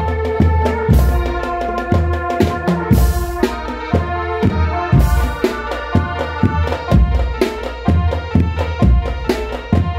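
Loud music with heavy, regular drum strokes and a hand-drum rhythm over sustained melodic tones.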